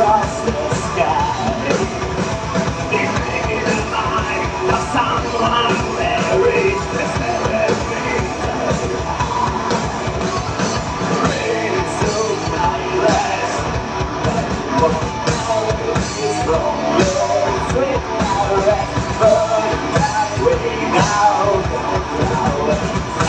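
Rock band playing live, loud and continuous, with a drum kit driving the beat and a singer's voice over the instruments.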